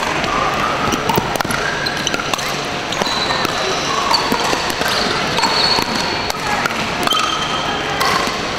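Pickleball rally: repeated sharp pocks of paddles hitting the plastic ball, with brief high squeaks, over the steady din of a busy sports hall where games go on at other courts.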